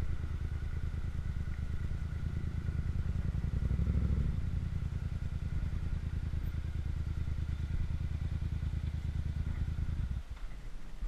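Yamaha motorcycle engine running at low speed as the bike rolls up and stops, with a short swell in engine sound about four seconds in. The engine then idles and is switched off about ten seconds in, its low pulsing stopping abruptly.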